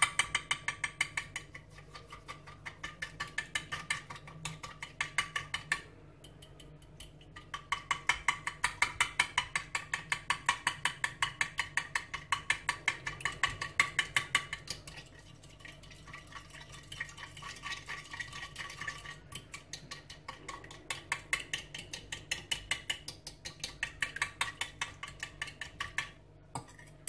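A fork beating eggs, milk and cream in a glass bowl: rapid, even clicking of metal against glass at about five strokes a second, with a short break about six seconds in and again near the end.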